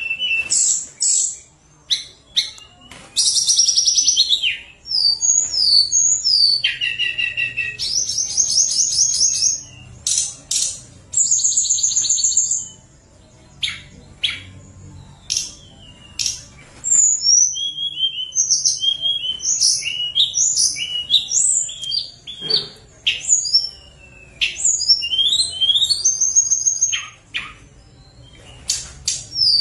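Caged tledekan gunung singing loudly and continuously: a long, varied song of high whistled notes, swoops and fast trills, in phrases broken by short pauses.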